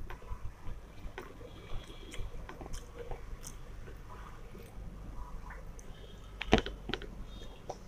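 Eating by hand: fingers working fried rice on a plate, then a mouthful taken and chewed, heard as scattered small clicks with a louder cluster about six and a half seconds in.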